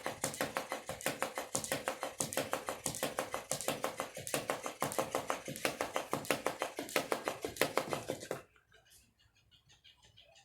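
Battery-operated flopping fish toy running: its motor hums while the body flaps and taps in quick regular strokes, several a second. It stops suddenly about eight seconds in, leaving only faint light taps.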